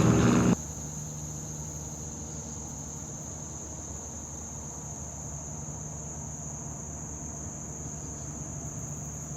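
A loud engine-like drone cuts off abruptly about half a second in. After it, insects keep up a steady high-pitched drone over a faint low hum.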